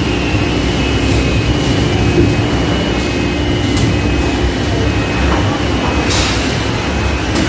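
Steady low drone of factory machinery, with a short hiss about six seconds in.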